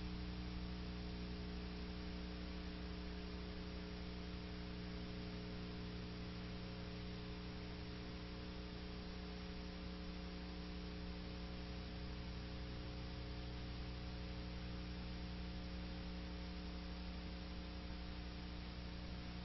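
Steady electrical hum, a stack of low tones over an even hiss: the background noise of the recording, with no other sound.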